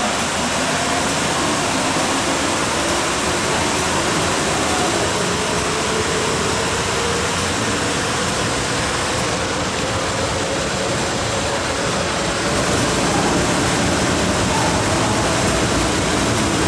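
MTR M-Train electric multiple unit running through the station behind platform screen doors without stopping: a steady rumble of wheels on rail with a motor whine that slowly rises in pitch. It gets louder about two-thirds of the way in.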